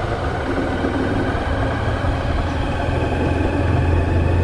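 Hero Hunk motorcycle's single-cylinder engine running steadily at low road speed, heard from on the bike.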